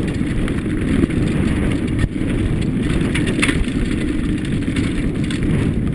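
Wind rumble on a helmet camera's microphone and tyre noise as a mountain bike descends a dirt trail at speed, with sharp knocks and rattles from the bike over bumps about one, two and three and a half seconds in.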